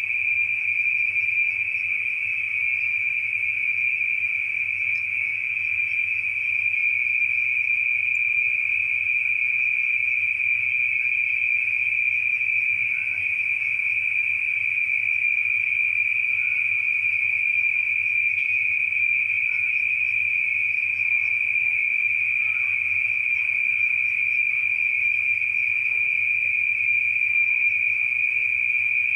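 Insects, crickets by the sound of it, giving a continuous high-pitched trilling chorus that never breaks, over a low steady hum.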